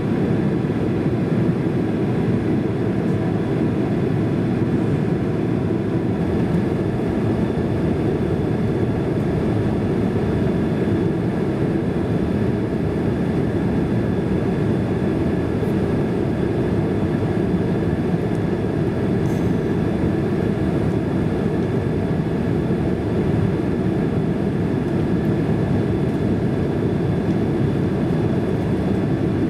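Steady jet engine and airflow noise inside the cabin of a Boeing 767-300 airliner on final approach: an even low rumble with faint steady whine tones above it.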